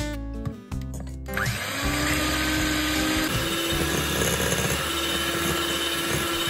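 Electric hand mixer starting about a second in and running steadily, its beaters whisking eggs and sugar in a glass bowl; its motor tone steps up in pitch partway through. Background music plays at the start.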